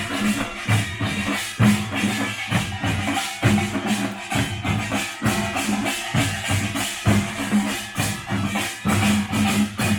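Korean pungmul folk percussion band playing: drums beating a steady, driving rhythm with a jangling metallic clatter on top.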